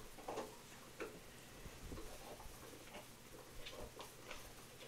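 Faint, irregular light clicks and rustling from a cross-stitch project and its project bag being handled.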